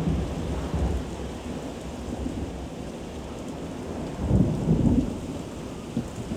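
Heavy rain pouring steadily under rolling thunder, with a louder low rumble of thunder swelling about four seconds in and fading about a second later.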